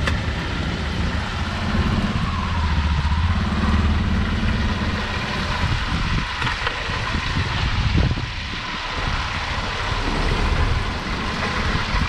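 Steady low rumble of street traffic with engine noise, swelling and easing slightly without any distinct event.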